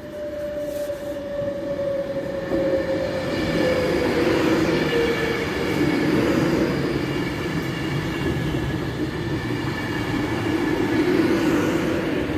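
Class 390 Pendolino electric train running along the platform, getting louder over the first few seconds and then staying loud. A whine slides down in pitch over the first five seconds, heard over steady rumbling wheel and body noise.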